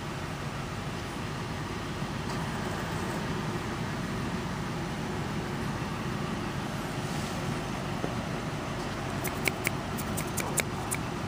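Steady rumble of road traffic, with a quick run of sharp clicks near the end.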